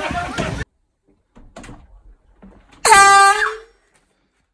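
One short, loud air horn blast about three seconds in, lasting under a second and holding a single steady pitch. Before it come a few faint sounds, after sound from the previous clip cuts off abruptly within the first second.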